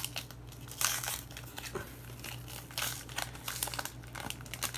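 A 1993 Topps baseball card pack wrapper being torn open and crinkled by hand, in irregular rustling bursts.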